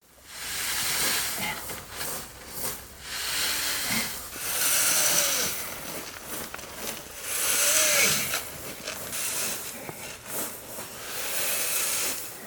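A rake dragged through the white gravel of a Zen dry landscape garden, drawing patterns in long scraping strokes that each swell and fade over a second or two.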